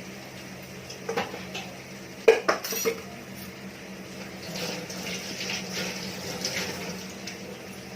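A metal spoon knocking and scraping against a cooking pan while frying garlic and ginger: sharp clinks about a second in and a quick cluster of knocks around two and a half seconds, then softer scraping strokes, over a steady low hum.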